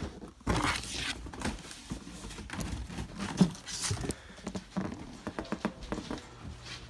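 Irregular footsteps, taps and rustling from someone walking about while carrying the phone, with one louder thump about three and a half seconds in.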